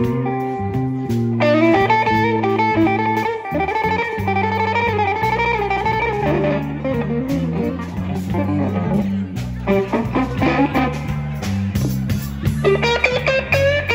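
Live blues band playing a slow blues: an electric guitar plays a lead line full of bent, wavering notes over bass guitar and drums.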